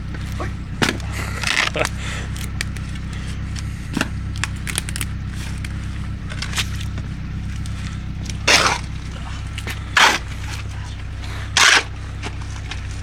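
A spade chopping and digging into wet turf and mud, with a few light knocks early on and three sharp chops in the second half, about a second and a half apart. A steady low engine hum runs beneath.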